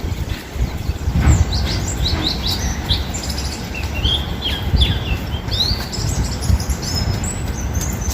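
Pleci (white-eye) giving a quick run of short, high chirps. A steady low rumble runs underneath.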